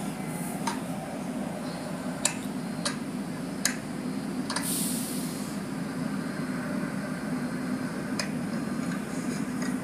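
Automatic car wash heard from inside the car: a steady low hum of the wash machinery with water spray on the glass. A few sharp ticks and a brief hiss of spray come about halfway.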